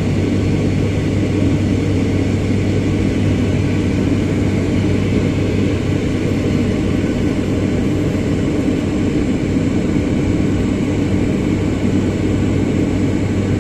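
Steady drone of an airplane cabin in flight: engine and airflow noise with a constant low hum, unchanging throughout.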